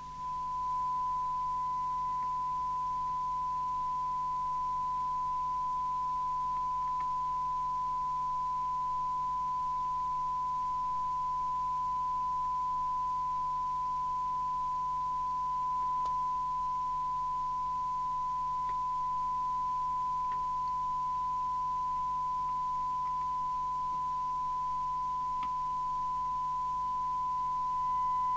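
A steady 1 kHz test tone from the Eurosonic ES200 handheld CB radio's loudspeaker: the demodulated tone of the signal generator's test signal, used while the receiver's detector is being aligned. It comes up about half a second in and gets slightly louder near the end as the detector is adjusted.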